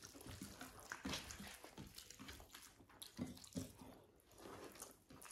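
Faint, wet eating sounds of khichuri being eaten: a few soft, short smacks and clicks with pauses between them.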